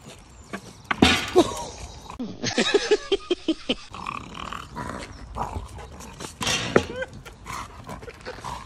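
A dog growling and grunting as it carries a large branch in its mouth, with a quick run of short grunts a few seconds in. Several sharp knocks sound among the grunts, the loudest about a second in.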